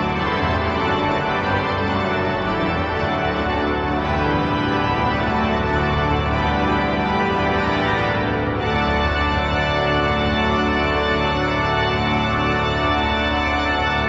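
Maarschalkerweerd/Adema pipe organ played on full organ (tutti), with loud sustained chords that shift every second or two.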